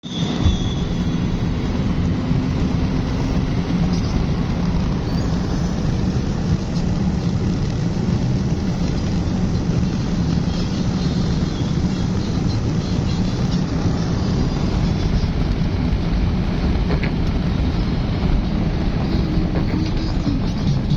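Steady low rumbling noise that holds at an even level throughout.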